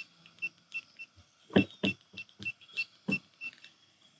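ONNAIS RV smart lock keypad beeping as random digits are tapped in: about a dozen short beeps of the same high pitch, about three a second, each with a light tap of the key press.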